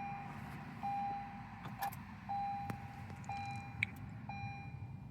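An electronic warning chime beeping repeatedly at one pitch, each beep about half a second long and coming roughly once a second, over a low steady hum.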